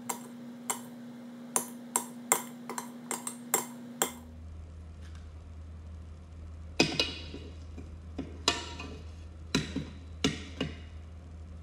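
Metal spoon stirring slime in a glass jar, clinking against the glass in a quick run of sharp clicks for the first few seconds. Then, after a short pause, come a handful of heavier knocks and scrapes.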